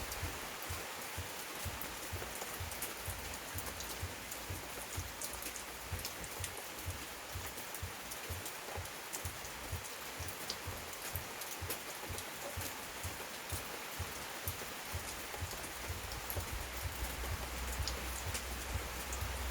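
Heavy rain pouring steadily, a dense hiss with many individual drops ticking and pattering on surfaces.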